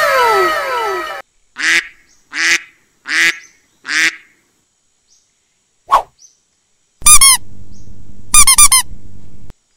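Four short squeaky rubber-duck quacks, about one every 0.8 seconds, after a cartoon sound effect of several falling whistles. Near the end come two loud, fast trilling chirps over a steady low hum.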